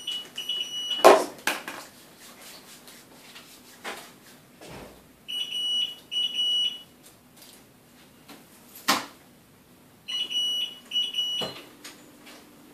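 Electronic alarm beeping from an IV infusion pump: three high, steady beeps repeated about every five seconds. Two sharp knocks come about a second in and again near the end.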